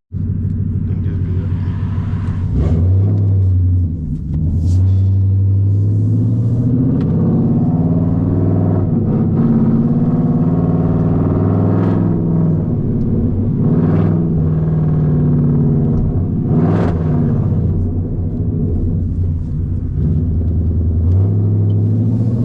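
Car engine running while driving, with a low rumble; its pitch rises and falls several times as the speed changes.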